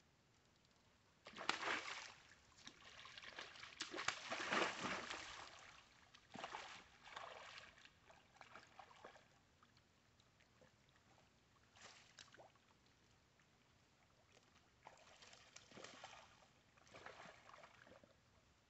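Hooked catfish splashing and thrashing in the water as it is reeled in to the bank. The splashing comes in irregular bursts and is loudest in the first five seconds, with a few smaller splashes later.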